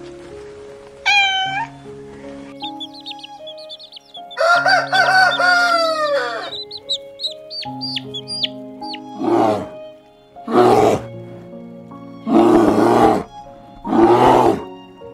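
Background music with animal calls over it: a short cat meow about a second in, then a rooster crowing, one long call that falls away at the end, among small high peeps. Near the end come four loud, harsh, noisy animal calls.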